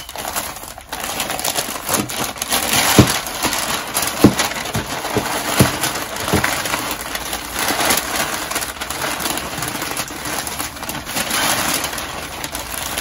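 White packing paper rustling and crinkling as it is unwrapped by hand, with a few light knocks about three to six seconds in.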